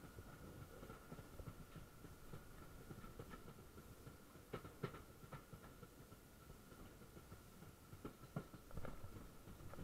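Faint rumble of a moving passenger train, heard from outside the side of the coach, with a few sharp clicks of wheels over rail joints about halfway through and again near the end. A thin steady high whine runs under it.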